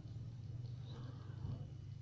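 Faint small clicks and scrapes of a lock pick working the pins of a euro-cylinder pin-tumbler lock, over a steady low hum.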